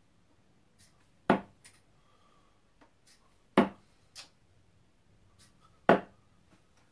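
Three darts thudding one after another into a Winmau Blade bristle dartboard, about two and a quarter seconds apart, each impact followed by a fainter tick.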